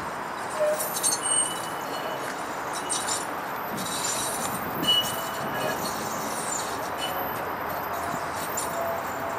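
Bombardier Flexity Outlook low-floor streetcar rolling slowly around a tight loop curve, a steady wheel-on-rail rolling noise broken by sharp clicks and clinks from the wheels and track, loudest about a second in and again around four to five seconds in.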